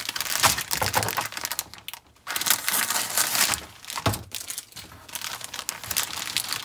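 Clear plastic kit bag crinkling and rustling as the styrene sprues inside are handled, in irregular crackly bursts with a short pause about two seconds in.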